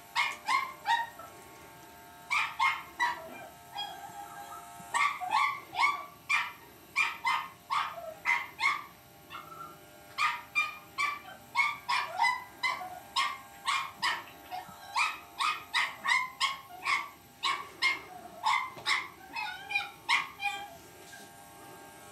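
Cavalier King Charles spaniel puppy barking and yipping at an electric shaver: short high yaps, many in a row, often two or three in quick succession, with a few brief pauses.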